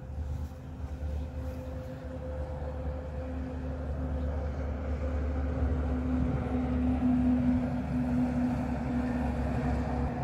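A motor vehicle engine's steady hum over a low rumble, growing louder to a peak about seven seconds in and easing slightly near the end.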